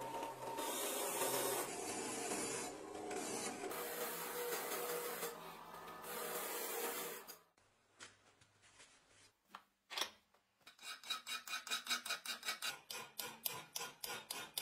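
A wire-wheel brush spinning in a drill press scrubs rust off a steel cleaver blade: a steady harsh scratching that cuts off suddenly after about seven seconds. After a pause and a single knock, a file rasps along the edge of the cleaver clamped in a vise, in quick strokes several times a second.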